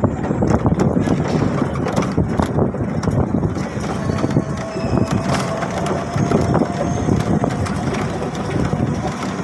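Motorcycle running as it rides along a road, heard from on board as a rough, uneven rumble. A faint steady whine joins in about halfway through.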